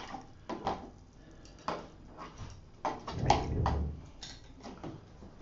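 Scattered light clicks and knocks of small objects being handled and set down, with a duller low thump about three seconds in.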